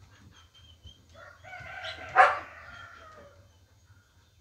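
A single drawn-out animal call of about two seconds. It starts about a second in, peaks sharply just past the middle and then trails off.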